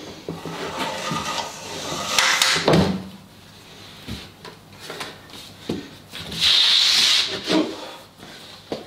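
Wooden clamped glue-up and its metal bar clamps knocking and rattling as the assembly is lifted and stood on end, with a solid knock as it is set down. Later comes a loud rubbing hiss of a sheet of MDF sliding across the wooden bench top, then a few light knocks.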